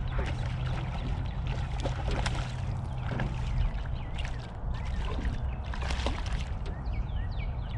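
Water splashing and sloshing at the side of a boat as a hooked largemouth bass is brought in, with scattered knocks. A steady low hum stops about halfway through.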